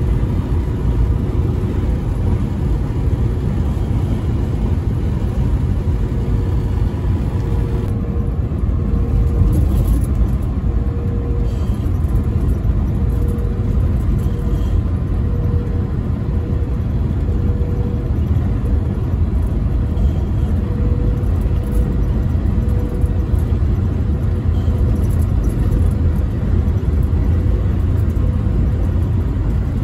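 Steady low rumble of a vehicle at highway speed, heard from inside the cab: engine and tyre-on-asphalt road noise. A faint hum comes and goes in a slow, even beat about once every second and a half, starting about a quarter of the way in.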